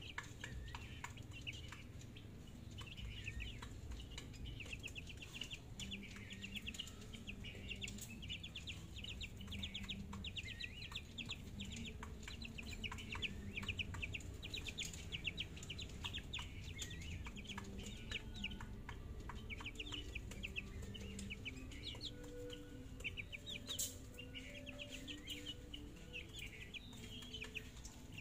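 Month-old chicks peeping over and over in quick runs of high calls, with scattered light clicks.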